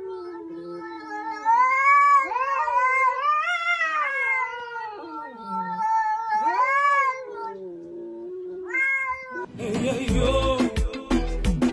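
Ginger-and-white domestic cat yowling at another cat: a series of long, wavering caterwauls that rise and fall in pitch, the sound of a standoff between two cats. About nine and a half seconds in, music with a heavy beat cuts in.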